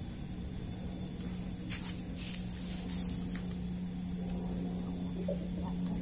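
A steady low mechanical hum, like a motor running, with brief rustling and handling noises about two to three seconds in.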